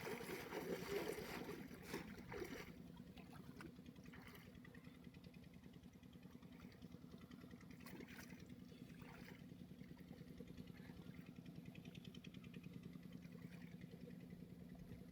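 Faint steady low hum, with louder scraping noise in the first two or three seconds.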